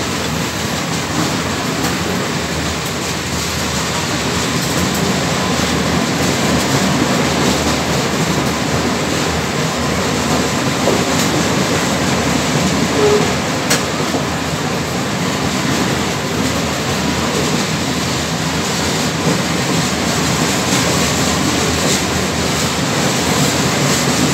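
Loaded iron-ore gondola wagons of a heavy freight train rolling past: a steady noise of steel wheels running on the rails.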